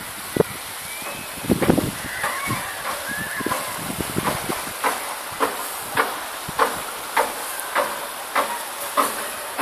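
Footsteps of a person walking at an even pace, about one step every 0.6 seconds, over a steady high hiss.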